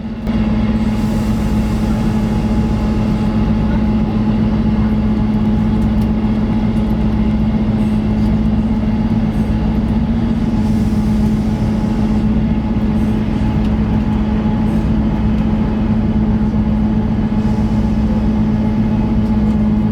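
Diesel passenger train heard from inside the front coach: a steady engine drone with an even hum, over the rumble of wheels on the track.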